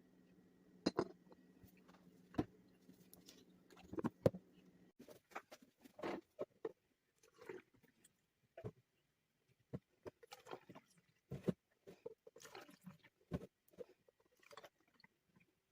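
Irregular clicks, knocks and light rustles of food packages and plastic containers being handled and set down while a refrigerator is organized. A low steady hum runs underneath and stops abruptly about five seconds in.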